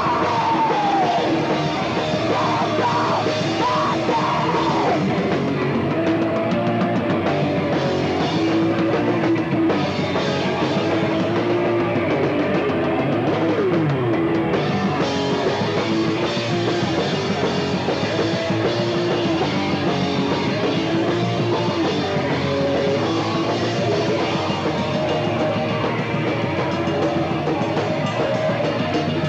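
Punk rock band playing live, drum kit and amplified instruments in a dense, steady wall of sound.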